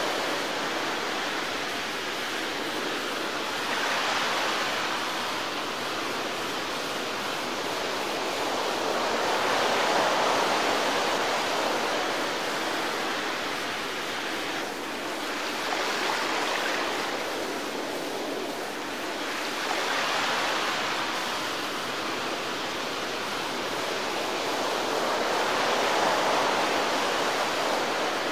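Rushing noise of wind and water from a small motorboat running at speed across choppy water, with the wind buffeting the on-board camera microphone. It swells and eases every few seconds.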